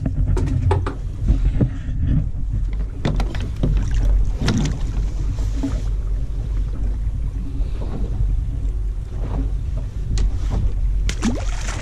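Steady low rumble of wind and sea around a drifting fishing boat, with scattered knocks and taps as fishing gear is handled at the rail.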